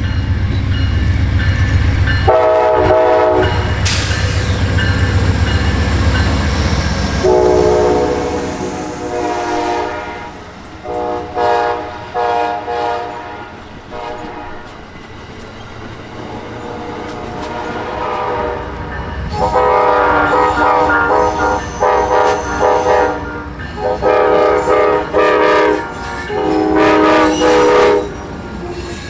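Locomotive air horn sounding a string of short and long blasts, several notes at once, most of them in the second half. Under it, a heavy train rumble for the first several seconds and wheels clacking.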